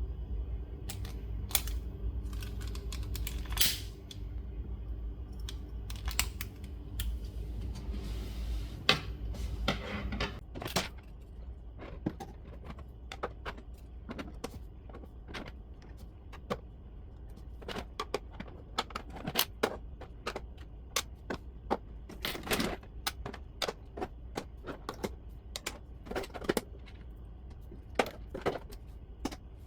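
Irregular hard plastic clicks and knocks of 3D-printed PLA parts being handled and fitted together, with a low steady hum under the first ten seconds or so.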